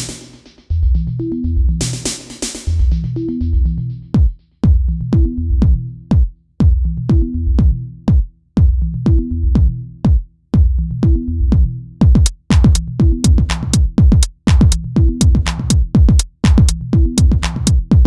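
Electronic background music with a drum-machine beat and a pulsing bass line.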